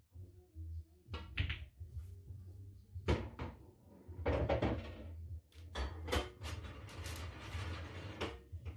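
Pool cue and balls on a red-and-yellow pool table: a sharp click about a second in as the shot is played, followed by more sharp knocks of balls hitting each other and the cushions. There is a longer stretch of clattering knocks near the end.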